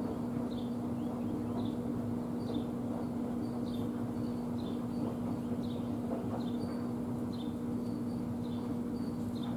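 A steady low hum from an unseen machine, with a small bird chirping repeatedly over it, short high chirps about once or twice a second.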